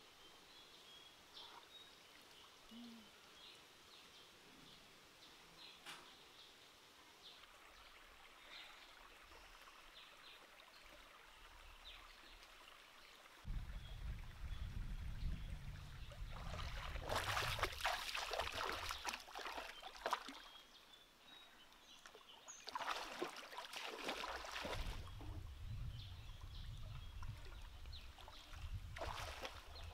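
Shallow stream water splashing in loud bursts as hands grope among the rocks under the surface, over a low rumble; faint bird calls in the quieter first half.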